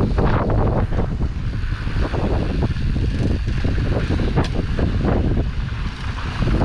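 Wind buffeting the microphone of a camera riding on a mountain bike at speed down a dry dirt trail, with a heavy rumble underneath and frequent short rattles and knocks from the tyres and bike on the rough ground. One sharp click stands out about four and a half seconds in.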